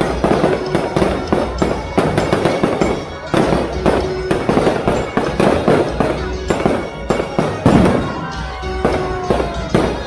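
Aerial fireworks shells bursting overhead, bang after bang in quick succession, several a second, with music playing underneath.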